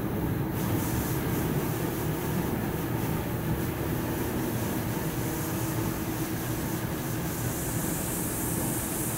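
Polypropylene staple fiber production line machinery running steadily: a continuous low hum and rumble, with a hiss growing louder near the end.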